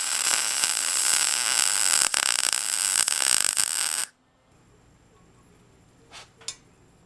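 Arc welding a steel brake line tab onto the axle tube: a steady, loud crackling hiss that cuts off suddenly about four seconds in. Two faint short sounds follow near the end.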